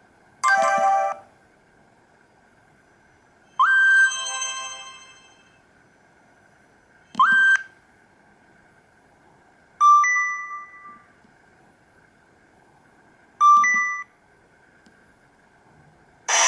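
Short electronic tones from the Nokia E66's built-in tone set, played one after another: five brief chimes and bleeps about three seconds apart. Some open with a quick upward slide in pitch, two are two-note beeps, and each fades out quickly.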